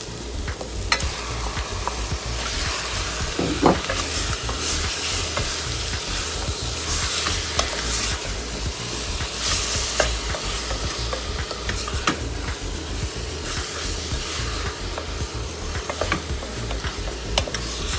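Raw chicken pieces sizzling in hot oil with sautéed onions in a stainless steel pot, stirred with a wooden spatula that scrapes and knocks against the pot, with many short clicks throughout.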